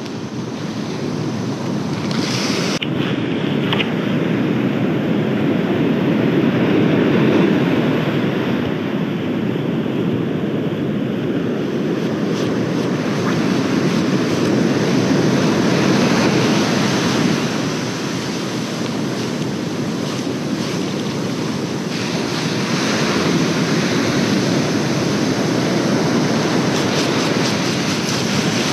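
Ocean surf breaking and washing up the beach, rising and falling in slow surges, with wind buffeting the microphone.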